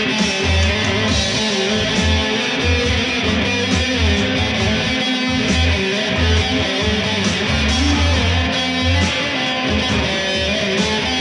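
Electric guitar played continuously through a small amplifier, strummed and picked, with a strong low bass underneath.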